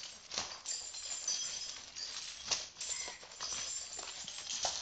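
Iron leg chains on a walking elephant clinking and dragging over the dirt, with a few sharper clinks.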